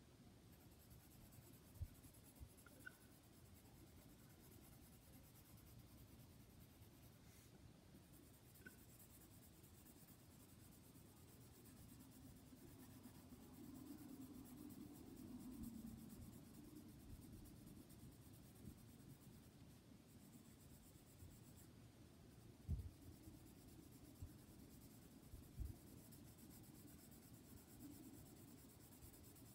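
Faint scratching of a pencil shading on sketchbook paper, with a few soft low knocks.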